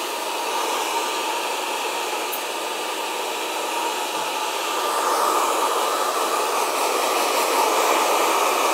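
Handheld hair dryer blowing steadily on freshly cut hair, a little louder from about halfway through.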